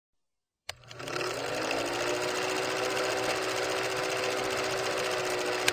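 Vintage film projector sound effect: a fast, even mechanical clatter with a steady hum, starting with a click just under a second in.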